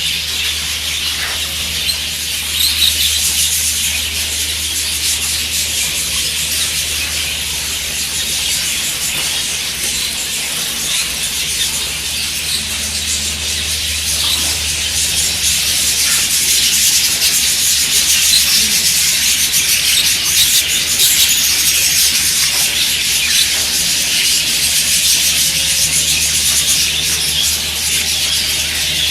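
Dense, continuous chatter of a large flock of budgerigars: many small overlapping calls that merge into one high, steady wash. A steady low hum runs underneath.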